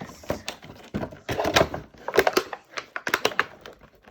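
Stiff clear plastic packaging crackling and clicking in irregular bursts as it is twisted and pried by hand, struggling to come open.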